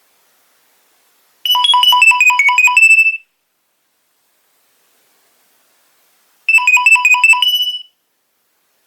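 Nokia 2300 mobile phone playing a ringtone: a quick run of short beeping notes stepping down in pitch, about a second and a half long. The run repeats after a pause of about three seconds.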